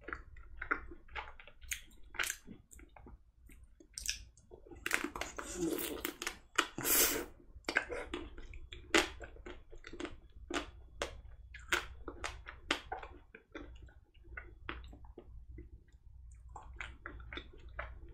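Close-up mouth sounds of a person eating a white-chocolate-coated Magnum ice cream bar that has begun to melt: wet chewing and smacking clicks, with a louder stretch of bites and chewing about five to seven seconds in.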